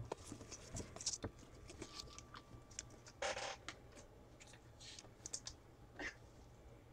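Faint scattered clicks and short rustles of trading cards being handled and set down by gloved hands, with a longer rustle about three seconds in.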